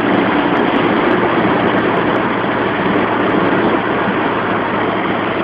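Nissan 200SX's 1.8-litre turbo four-cylinder and the road, heard from inside the cabin at motorway speed. There is a steady rush of tyre and wind noise under a low engine hum, and the hum fades away about two seconds in.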